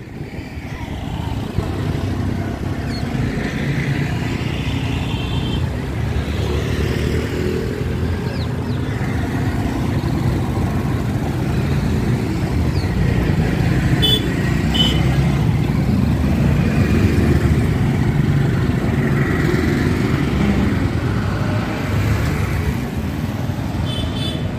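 Street traffic noise: cars and motorcycles running and passing steadily, with a few short horn beeps.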